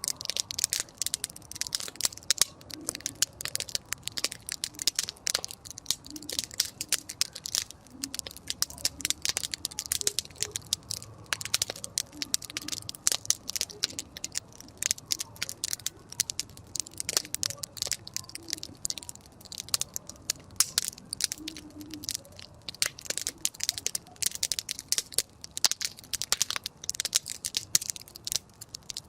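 Wood campfire crackling, with a steady, irregular stream of sharp pops and snaps.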